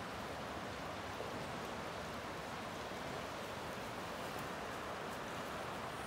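A river flowing steadily over a rocky riffle: an even, unbroken rush of water.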